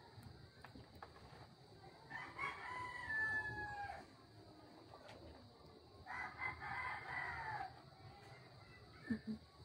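Rooster crowing twice, each crow about two seconds long with a falling tail, the second starting about six seconds in.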